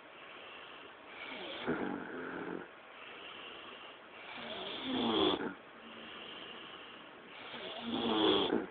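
A man snoring: three snores about three seconds apart, each a pitched snore that swells in loudness and cuts off sharply, with quieter breathing between them.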